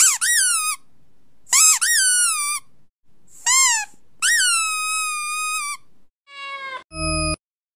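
Four high-pitched cat meows, each rising and then falling in pitch, the last one long and drawn out. Near the end come a short buzz and the start of a steady electronic beep.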